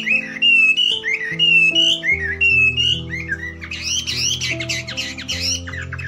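Background music with slow held notes, overlaid with birdsong: warbling, gliding whistled phrases at first, then a flurry of quick chirps from about four seconds in.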